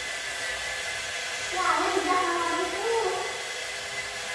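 Small electric motors of radio-controlled Playmobil toy vehicles whirring over a tiled floor, a steady hiss with a wavering whine that rises and falls about halfway through as they speed up and slow down.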